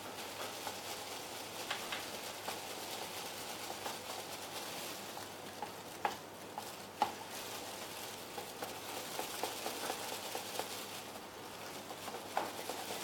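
Crispy-fry flour batter being beaten in a ceramic bowl: a steady wet stirring with light clinks of the utensil against the bowl, and a few sharper clinks about six and seven seconds in and near the end.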